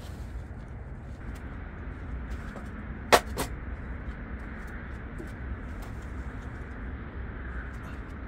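Two sharp knocks in quick succession about three seconds in, as a small metal camp table is set down on the tent floor. Around them is a steady low outdoor rumble and a few light clicks of handling.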